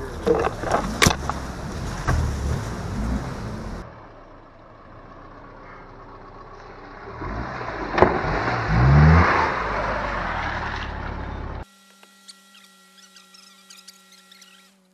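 A 1999 Subaru Forester's flat-four engine running over a bumpy mud trail, with sharp knocks and clatters from the car. Then it revs up, rising in pitch, as it splashes through a water hole, the loudest moment about eight seconds in. Near the end, quiet music with steady tones takes over.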